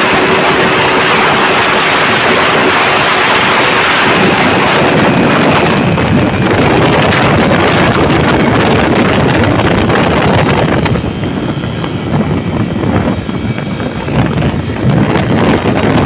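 Honda EX5 Dream motorcycle ridden at speed, its single-cylinder four-stroke engine running under heavy wind rush on the microphone. About eleven seconds in the wind noise drops and the engine sound eases as the bike slows.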